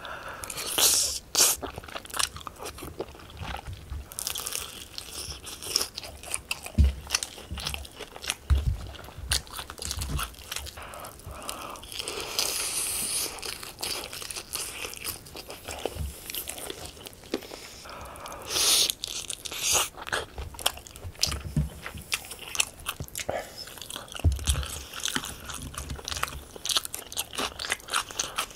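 Close-miked eating: crunchy bites into Kyochon Honey Combo fried chicken and chewing of spicy tteokbokki rice cakes. The sound is a steady run of small crackles and mouth sounds, with louder crunches about a second in, around twelve seconds and near nineteen seconds.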